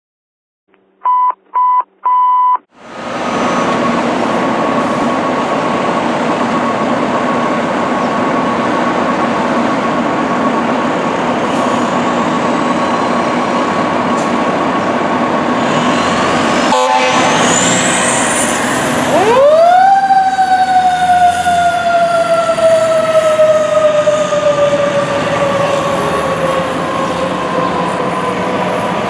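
Three short beeps, then the diesel engine of a 2003 Seagrave Marauder fire engine running as it pulls away. About two thirds of the way in, a mechanical siren winds up quickly and then slowly winds down in pitch.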